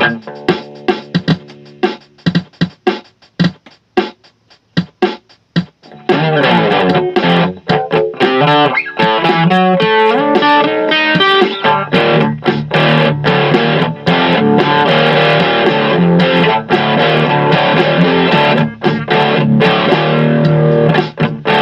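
Electric guitar played through a Joyo DC30 amplifier: short picked notes with gaps between them for the first few seconds, then a dense, continuous run of sustained chords and fast notes.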